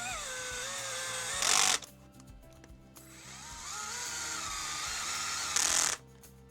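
Small electric screwdriver driving screws twice: each time the motor whine rises as it spins up, holds steady, and ends in a brief louder burst before stopping, about a second and a half in and again near the end.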